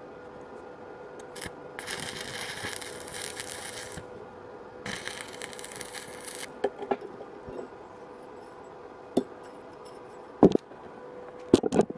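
Stick (arc) welding a small steel plate onto a steel tube: two tack welds, each a crackling, sizzling hiss, the first about two seconds long and the second about a second and a half. A few sharp knocks follow near the end.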